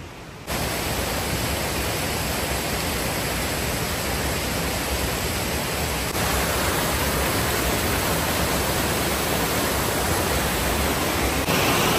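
Steady rushing of a rocky mountain creek spilling over small cascades, an even wash of water noise that gets a little louder about halfway through and again near the end.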